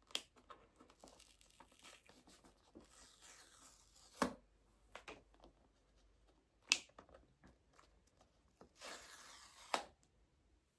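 Plastic shrink-wrap film being peeled and torn off a smartphone box: faint crinkling with scattered small clicks, two longer stretches of tearing about three seconds in and near the end, and a few sharp snaps.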